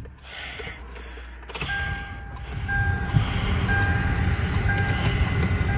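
Car engine running with a vehicle warning chime: a steady two-pitch beep repeating about once a second, starting a little under two seconds in as the engine grows louder.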